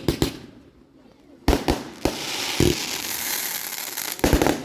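Fireworks going off: a quick cluster of sharp bangs, a short lull, then several single bangs. After them comes a stretch of crackling and another rapid cluster of bangs near the end.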